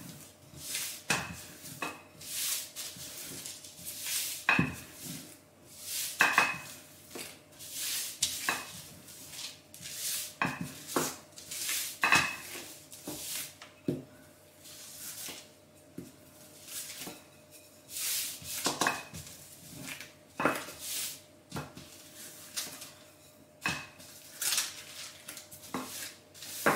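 Plain wooden rolling pin rolled back and forth over a thin sheet of dough on baking paper: repeated rustling swishes of the paper, one every second or two, with light clacks of the pin on the worktop.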